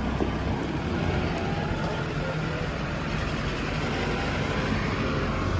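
A heavy engine running steadily with a low hum.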